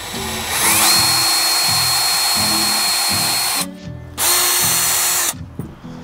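Cordless drill boring a small starter hole into a weathered wooden board. The motor spins up with a rising whine about half a second in and runs steadily for about three seconds. It stops briefly, then runs again for about a second. Background music with a steady beat plays underneath.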